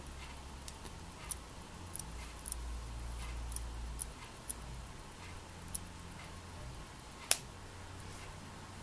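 Faint, sharp clicks at uneven intervals from a TAG Heuer Grand Carrera Calibre 17 RS2 chronograph as its date is advanced at the crown, with one much louder click about seven seconds in. A low rumble of the watch being handled runs beneath.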